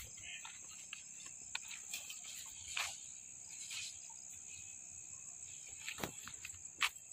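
Insects chirring in a steady high-pitched drone, with a few sharp clicks and knocks, the loudest about six and seven seconds in.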